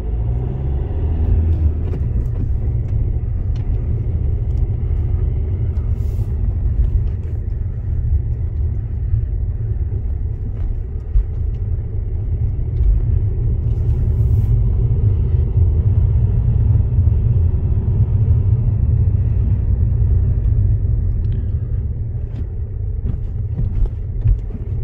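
Fiat 500L driving, with steady road and engine rumble heard inside the cabin. Scattered short knocks come from the suspension over bumps, several near the end. The owner hears something there and suspects a worn suspension arm.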